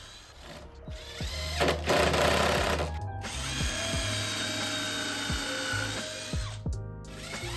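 Cordless drill running as it drives screws into a wooden frame, with a few short breaks, over background music.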